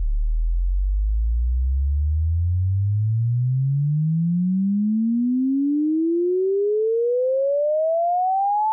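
Pure sine-wave test tone sweeping steadily upward in pitch, from a deep bass hum to about 1 kHz: a frequency sweep used to test headphone response.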